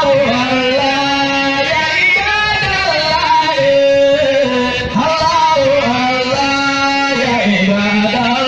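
Male singing with instrumental accompaniment: a long, winding, ornamented melody sung over steady held notes that change pitch now and then.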